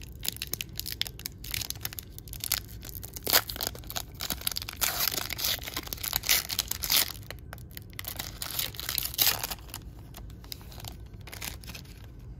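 Foil wrapper of a trading-card pack crinkling and tearing as it is pulled open by hand, in crisp crackles that are loudest in the first nine seconds and then quieter.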